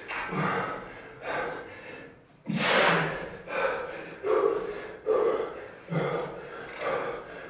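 Heavy breathing from physical exertion: forceful, rhythmic breaths about once a second, with one loud, sharp exhale about two and a half seconds in. It is the effort of one man climbing around another's body while the other holds him up.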